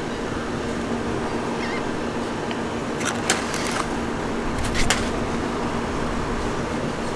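Steady mechanical hum with a constant low drone, like a motor running nearby, with a few short crackling clicks about three and five seconds in.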